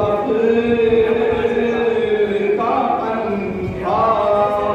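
A man's voice chanting an Urdu devotional poem through a microphone, holding long drawn-out notes with short breaks between phrases.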